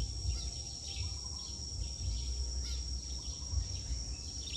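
Insects droning with one steady high-pitched tone, under a low, uneven wind rumble on the microphone.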